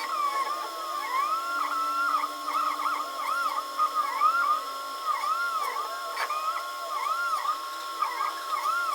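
Signage 3D printer's stepper motors whining as the print head moves: a steady high tone with many quick rising-and-falling pitch sweeps as the motors speed up and slow down.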